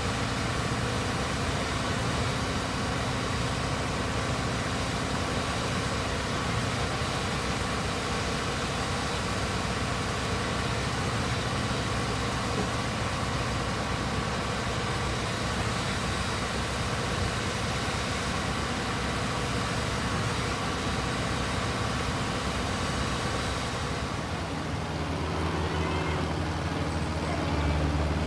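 Diesel engine and hydraulics of a continuous-flight-auger piling rig running steadily while the auger is drawn up out of a pile bore and concrete is left in the hole. Near the end the sound changes to a lower, steadier hum.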